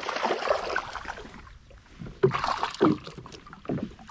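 Water splashing for about the first second and a half, then a few short, low knocks or grunts.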